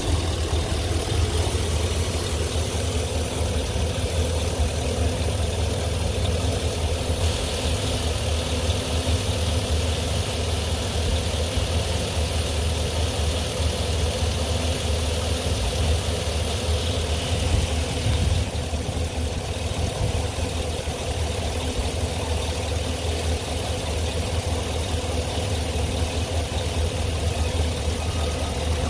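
Chevy Silverado 3500HD engine idling steadily, heard up close under the open hood.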